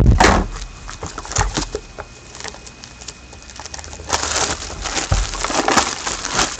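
Handling noise from a sealed trading-card box being opened: a knock at the start, scattered clicks, then rustling and scraping of the packaging being worked loose.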